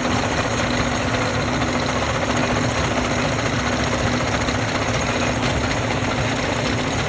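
Stone crushing machine running steadily: a dense, continuous rattle of rock being broken, over a steady machine hum.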